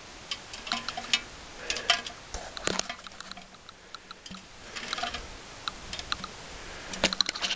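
Dry sagebrush twigs crackling and snapping as hands push in and search under the bush, in scattered clusters of sharp clicks.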